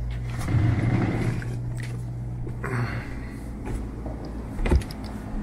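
Footsteps and knocks of people climbing a boat's steps, with one sharp knock near the end, over a low hum in the first half.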